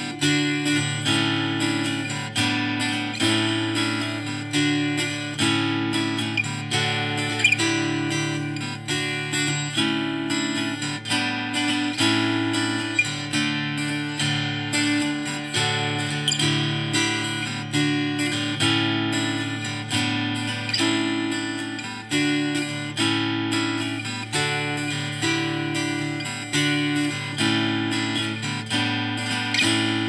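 Background music: an acoustic guitar playing plucked chords in a steady rhythm, each chord ringing and fading before the next.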